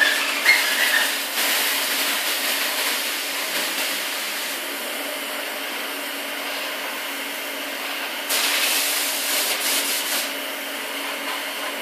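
Airbrush hissing as it sprays paint, the air louder for the first second or so and again for about two seconds near the end, over a faint steady low hum.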